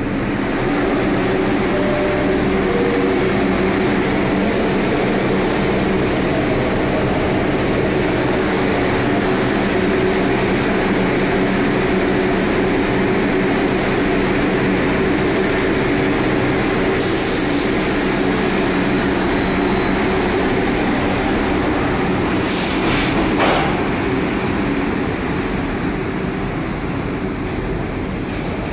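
New York City subway R62A train standing at a station platform with a steady hum. About 17 seconds in there is a long hiss of air, then a sharp clunk a few seconds later, and the train pulls out, its sound slowly falling away.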